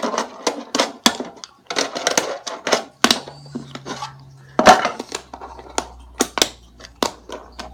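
Fingerboard with bearing wheels clacking and tapping against ramps and a hard surface as it is handled: a run of irregular sharp clicks and knocks, the loudest a little past halfway.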